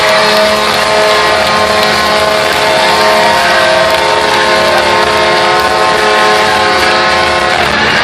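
Phoenix Coyotes arena goal horn blowing one long steady chord over crowd noise, cutting off near the end.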